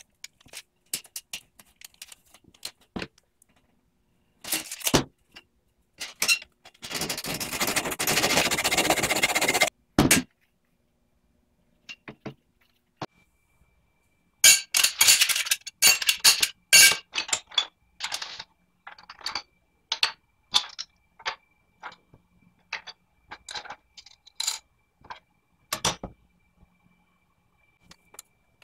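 Aluminium bars and small plastic parts being handled and set down on a stone floor: scattered clicks, clinks and clatters, densest about halfway through. About a quarter of the way in comes a stretch of steady rough noise lasting about three seconds.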